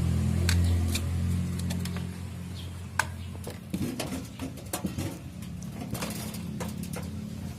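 Scattered light clicks and knocks of computer parts and a drive cable being handled and plugged in, over a steady low hum that slowly fades.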